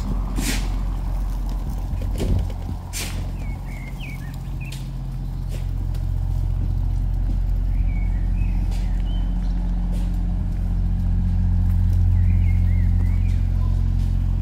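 A motor vehicle's engine running with a steady low hum that grows louder from about five seconds in, while birds chirp briefly a few times. A few sharp taps sound in the first three seconds.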